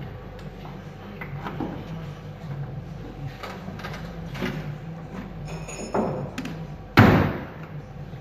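Bare steel boot lid of a 1972 Dodge Charger body shell slammed shut about seven seconds in: one loud bang with a short fading metallic ring, after lighter knocks as the lid is handled.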